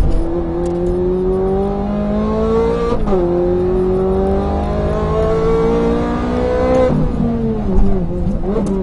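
Ferrari 430 Scuderia's V8 engine heard from inside the cabin, accelerating hard through the gears. The note rises, drops sharply at an upshift about three seconds in, and climbs again to a second shift near seven seconds. It then sinks and wavers as the throttle comes off, with a short rise just before the end.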